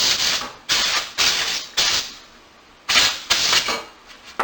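Canned compressed-air duster blowing dust out of a space heater's shaded-pole fan motor in short hissing blasts: about four in quick succession, then a pause, then two more near the end.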